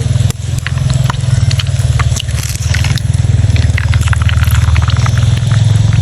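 An engine running steadily with a fast, even low pulsing, with scattered light clicks and ticks over it.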